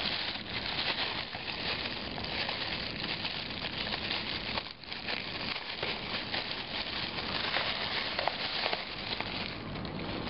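Clear plastic packaging bags crinkling and rustling continuously as they are handled and pulled out of a cardboard box, with a brief lull about halfway through.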